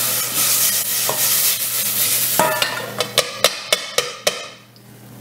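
Diced vegetables sizzling in oil in a stainless steel saucepan on an induction hob, sweating off their moisture. Partway through there is a run of about seven sharp metal knocks as the pan is handled, and near the end the sizzle dies away as the pan comes off the heat.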